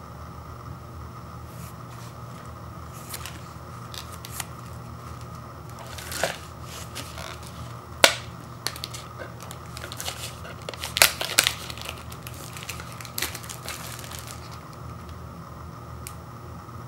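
Clear plastic shrink wrap on an instant noodle cup being picked at and peeled off: crinkling with scattered sharp cracks, the loudest about 8 and 11 seconds in.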